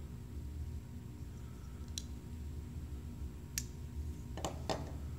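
Sharp metal clicks from a titanium frame lock flipper knife as its blade is closed and worked: the lock bar and detent snapping. One click about two seconds in, another a second and a half later, then two close together near the end.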